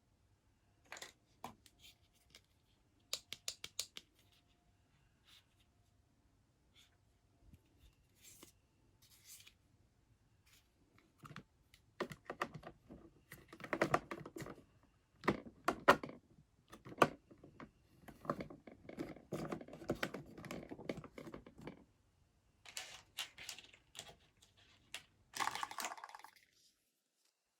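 Small plastic toy kitchen pieces and their packaging being handled: scattered light clicks and taps, then denser stretches of tapping, scraping and rustling in the second half.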